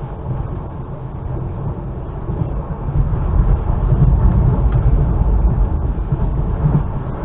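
Running noise of an ЭШ2 (Stadler KISS) double-deck electric train heard from inside the carriage: a steady low rumble of wheels on the track that grows louder about three seconds in.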